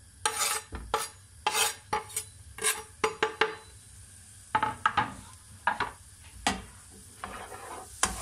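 Wooden spoon stirring chopped onion and garlic in a non-stick frying pan: irregular scraping strokes against the pan, with a pause about halfway, over a faint sizzle of the fat.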